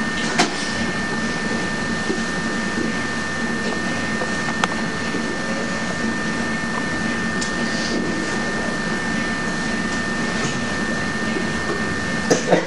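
Steady hiss and hum with a constant thin high whine, a few faint clicks, and a short cluster of light knocks near the end.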